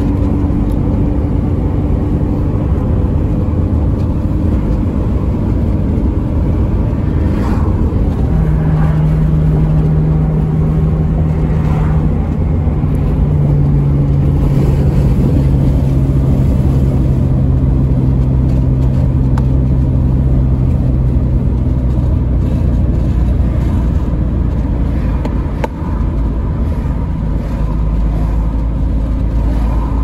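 Car engine and road noise while driving on a mountain highway: a steady low rumble with a constant engine hum. The engine note rises about eight seconds in and settles slightly lower a few seconds later.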